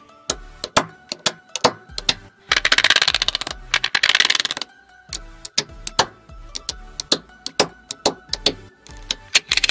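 Small neodymium magnetic balls (Buckyballs) clicking as they snap onto a grid of magnets, with two bursts of rapid clattering about two and a half and four seconds in as whole rows are slid into place. Background music with low bass notes runs underneath.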